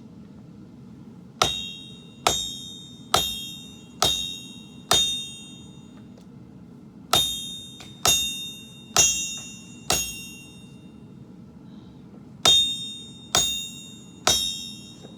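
Hammer striking a steel sword blade on an anvil, each blow ringing out with a bright metallic tone. Five blows about a second apart, a pause, four more, another pause, then three.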